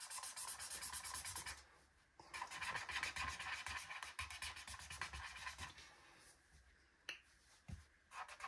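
Felt-tip pen scribbling on paper in quick back-and-forth strokes, colouring in a small area. It stops briefly about two seconds in, then starts again, and dies away after about six seconds, leaving a few faint taps.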